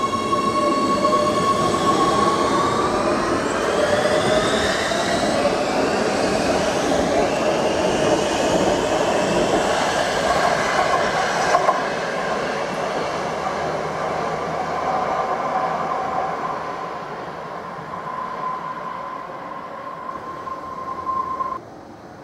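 Oslo metro MX3000 train pulling out and accelerating: its electric traction drive whines in several tones that rise in pitch over the rumble of wheels on rail. The sound slowly fades as the train heads into the tunnel, then stops abruptly near the end.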